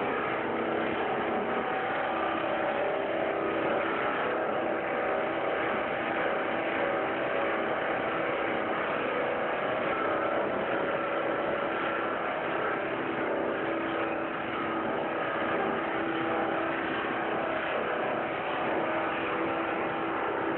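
PP/PE plastic film crushing and washing line running: steady machinery noise with several steady hums layered in.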